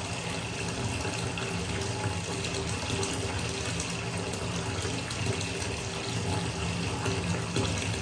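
Bathtub tap running a thin, steady stream into a partly filled tub, the water splashing continuously into the bathwater.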